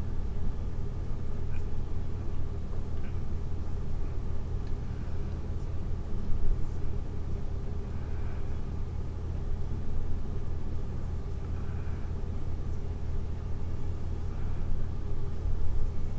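Steady low rumble of background room noise, unchanging throughout, with a few faint brief sounds above it.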